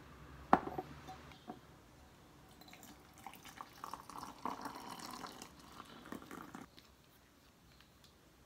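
A glass mug is set down on a wooden table with a sharp clink about half a second in. About three seconds in, hot water is poured from a stainless-steel kettle into the glass mug for about four seconds, then stops.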